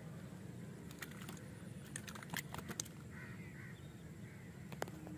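A few sharp clicks and taps as a freshly caught fish is handled on the line and unhooked by hand, a cluster about two to three seconds in and one more near the end, over a steady low background rumble.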